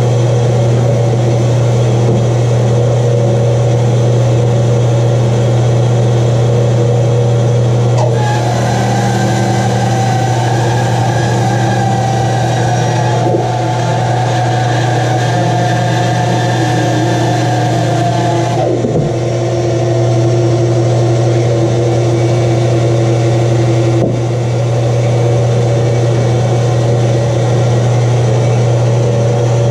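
Rikon bandsaw running with a steady motor hum while a thick block of wood is fed through the blade. The cutting sound over the hum changes pitch about a third of the way in and again a little past halfway as the feed changes.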